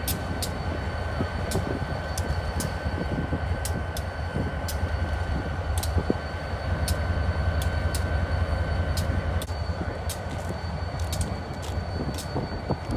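EMD SD45-2 diesel locomotive idling, its 20-cylinder two-stroke engine giving a steady low rumble with a constant whine above it.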